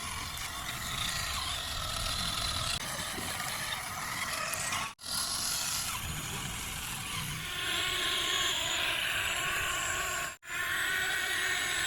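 Small electric motor and plastic gearbox of a toy RC truck running steadily. It cuts off abruptly about five seconds in and again near the end, then resumes each time.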